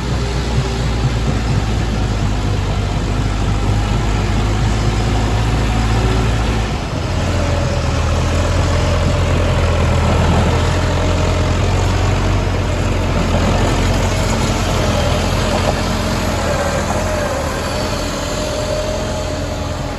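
Heavy diesel machinery engine running steadily, its note shifting about seven seconds in.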